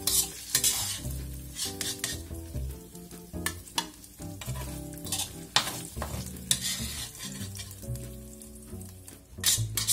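Metal spatula scraping and knocking against a wok as stir-fried shredded pork is scooped out, with oil sizzling lightly in the pan. The scrapes come irregularly, several per second at times.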